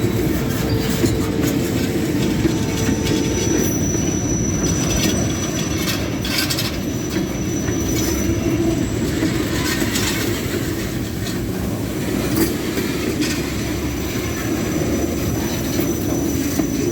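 Freight cars rolling past, a steady rumble with occasional clacks of wheels over rail joints. A thin high wheel squeal comes in a few seconds in, fades, and returns near the end.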